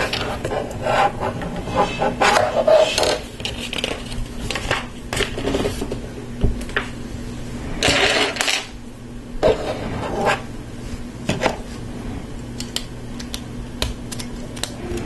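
Hard LEGO Technic plastic parts clicking and rattling as they are handled and fitted together, with a louder clatter of loose pieces being sorted through on the table about eight seconds in.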